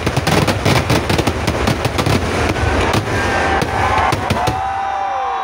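A dense, rapid barrage of firework bangs from a ground-fired Kerala festival fireworks display (vedikettu). About three seconds in it thins to a few scattered bangs. Long high tones sound over them, one falling in pitch near the end.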